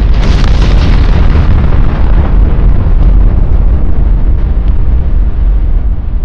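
Nuclear explosion sound effect: a sudden loud blast, then a deep rumble whose higher hiss dies away over about three seconds while the low rumble goes on.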